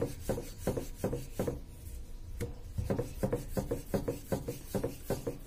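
Wooden rolling pin rolling spinach paratha dough back and forth on a marble board: a quick run of rubbing strokes, about three a second, with a brief pause about two seconds in.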